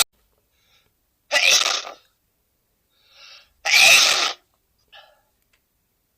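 A man sneezing twice, loudly, a little over two seconds apart.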